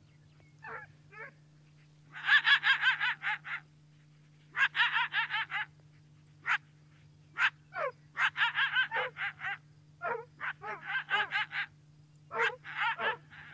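Coyote barking and yipping in rapid, high-pitched trains: five or six bouts of about a second each, with short single yips between them. A faint steady hum runs underneath.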